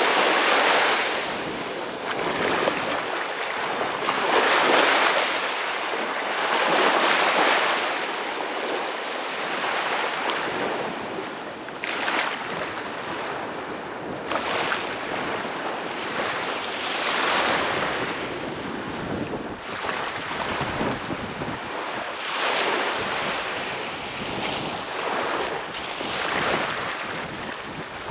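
Small waves breaking and washing up a sandy beach, the surf swelling and easing every two to three seconds.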